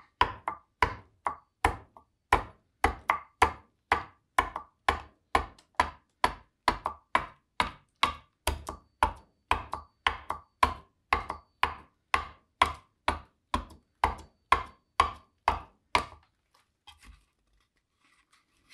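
Bowl adze chopping steadily into a green black walnut bowl blank, about two to three strokes a second. Each blow rings with a higher-pitched note from the bowl as its wall gets thinner. The strokes stop about sixteen seconds in.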